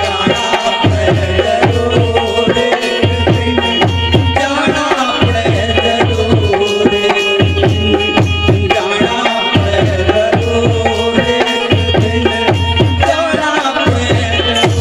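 Instrumental interlude of a Hindi devotional bhajan: hand drums in tabla style keep a steady rhythm of deep bass strokes under held melodic notes, with no singing.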